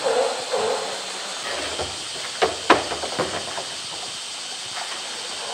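A hollow plastic drum knocking against concrete steps, several sharp knocks close together about two and a half seconds in, over a steady hiss.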